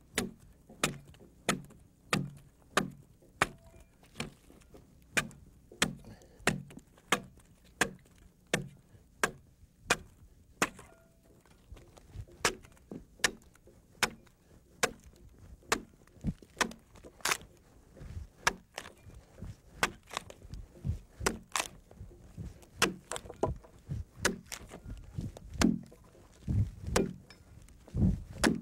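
Broad axe hewing the side of a log: a long run of chops as the blade bites into the wood and splits off slabs and shavings, about one and a half blows a second at first, then closer together and less even in the second half.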